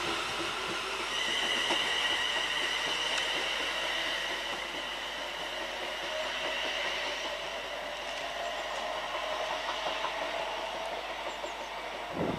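ScotRail Class 380 electric multiple unit pulling away: its electric traction whine rises slowly in pitch as it accelerates, with a steady high-pitched whine above it. A brief low knock comes right at the end.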